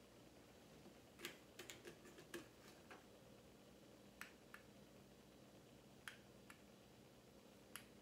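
Near silence: room tone with a faint steady hum, broken by scattered small clicks and ticks, a quick cluster of them about a second in and a few single ones later.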